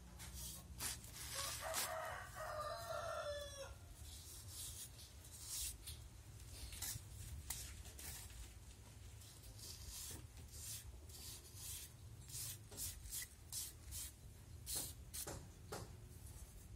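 A rooster crows once, a single drawn-out call about two seconds in. Around it come repeated short scratches of a small trowel scraping lines into soft cement render.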